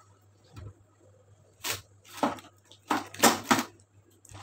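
A metal baking tin and wire cooling rack clattering as the tin is flipped upside down onto the rack: a run of sharp metal knocks, the loudest about three seconds in.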